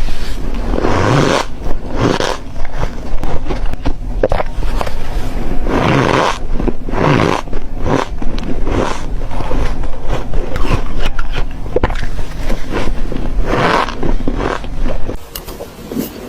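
Ice being bitten and crunched, loud and close, with many sharp cracks and crumbling crunches following one another.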